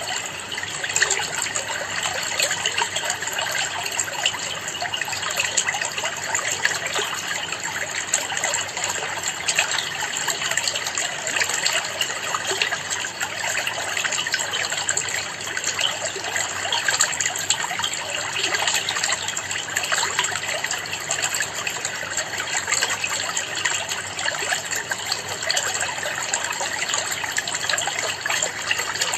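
Water in a planted aquarium trickling and splashing steadily, a continuous dense patter with no pauses.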